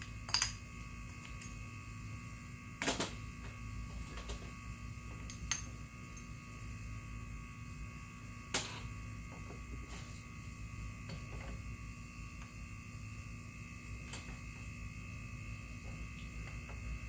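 Steady electrical hum, with a few sharp clicks and taps of tools on metal parts scattered through it.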